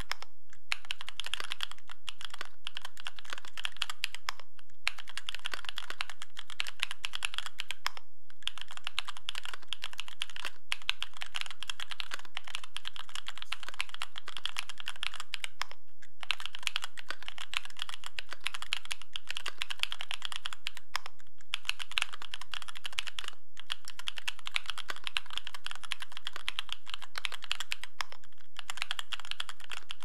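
Fast, continuous typing on a Special Dolphin mechanical keyboard fitted with stock, unlubricated Tecsee Bubble 65g linear switches on an aluminium plate: a dense stream of crisp key clacks, broken by brief pauses every few seconds.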